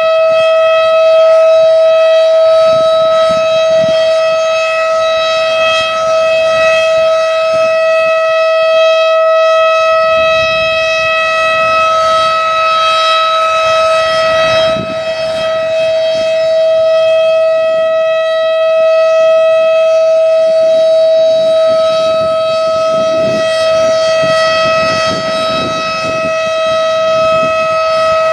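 Federal Signal Thunderbeam 12-port civil defense siren sounding a steady, unwavering tone at full speed. Wind gusts rumble on the microphone underneath.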